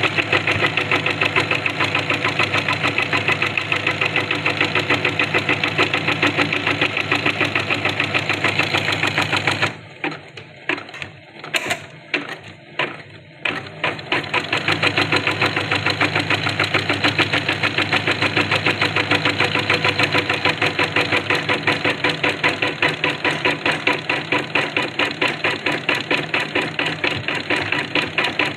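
Janome Secio embroidery machine stitching a design at a fast, even rhythm. About a third of the way in it slows to a few separate knocks for some four seconds, then picks up its full stitching pace again.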